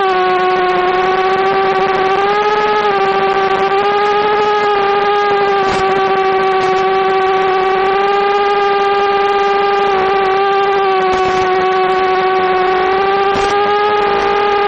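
OhMini FPV quadcopter's electric motors and propellers whining steadily in flight, the pitch dipping and rising slightly with throttle changes.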